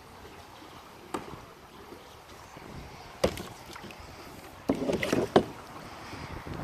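Kayak paddle strokes: sharp splashes and knocks about a second in, again at about three seconds, and a busier, louder run near five seconds, over a steady hiss of wind and water.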